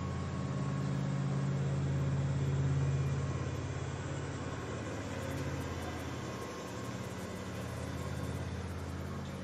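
Steady low mechanical hum with several held low tones, swelling a little about two to three seconds in and easing slightly after six seconds.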